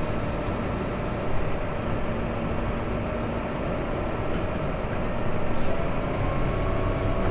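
Massey Ferguson tractor's diesel engine running steadily, heard from inside the closed cab, with a couple of faint knocks about halfway through.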